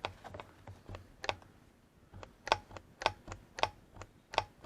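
Plastic glove box latch on a 2006 Chevy Equinox being worked repeatedly: a dozen or so sharp clicks at uneven spacing, some in quick pairs, as the freshly repaired latch is pulled, catches and releases.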